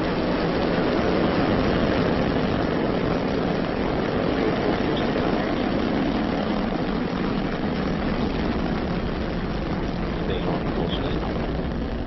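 Falcon 9 rocket's nine first-stage engines firing just after liftoff: a loud, steady rush of engine noise that swells slightly about a second in and eases a little toward the end.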